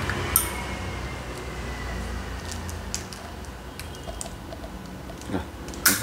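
A few sharp little clicks and taps from a metal Zippo lighter being handled, the sharpest about a third of a second in and right at the end, over a steady low hum.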